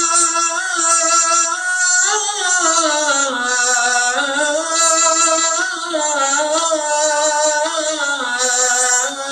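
A man's solo voice chanting the adhan, the Islamic call to prayer, in long melismatic phrases. A held note breaks about two seconds in into a winding line that falls, then rises again and settles on a held tone near the end.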